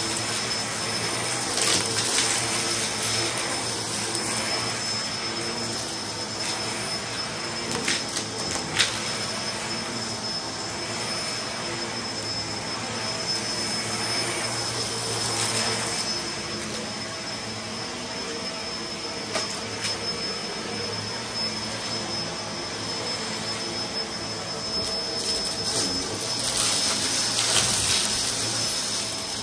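Bagless upright vacuum cleaner running steadily on a rug, with a high whine from its motor. Now and then a sharp click comes as grit and debris are sucked up into its clear bin.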